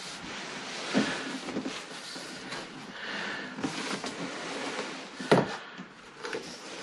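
Cardboard packaging being handled and opened: scratchy rustling of box flaps and wrapping, with two sharp knocks, about a second in and near the end.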